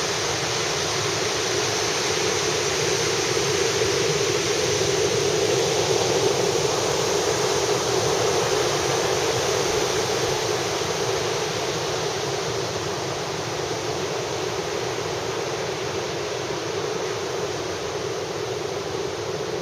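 Heavy surf whipped up by a typhoon breaking on the shore: a continuous rushing roar of waves that grows a little louder about five seconds in and eases off in the second half.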